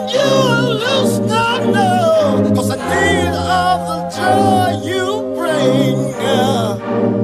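Background music: a song with a sung melody that slides and wavers over steady held chords.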